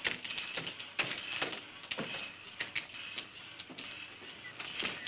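Footsteps on wooden steps and wooden platform boards: a series of sharp knocks, roughly two a second and unevenly spaced.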